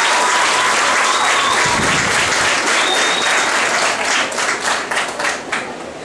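Audience applauding, thinning to scattered individual claps over the last two seconds.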